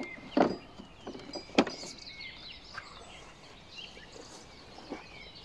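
Two short knocks about a second apart as hands handle the plastic housing of a Makita cordless lawn mower, with birds chirping in the background.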